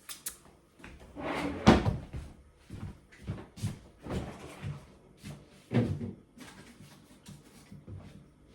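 Kitchen clatter: a series of knocks and clunks as cookware and kitchen fittings are handled and closed. The loudest bang comes nearly two seconds in, with another strong one about six seconds in.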